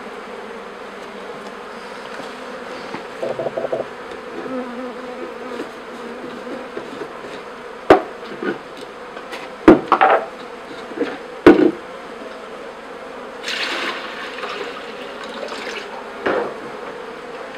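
Honeybees of a newly installed package colony hum steadily in an open top-bar hive. A few sharp knocks come around the middle, and a brief rustle follows a little later.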